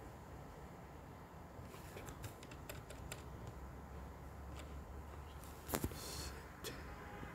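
Light clicks and taps from a computer keyboard and mouse: a quick cluster of clicks about two to three seconds in, then a louder double click about six seconds in and one more click shortly after.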